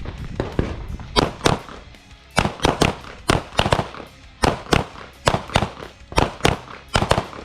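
Several pistols firing on the line at once: a rapid, uneven string of about two dozen overlapping shots from several shooters.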